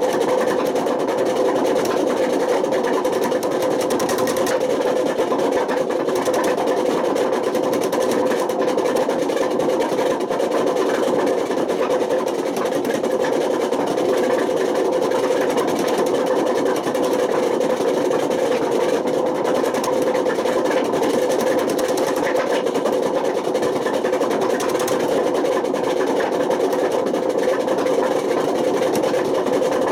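Panasonic NA127VB6 washing machine running with failed drum bearings: a loud, continuous grinding noise with a constant pitched drone that does not let up.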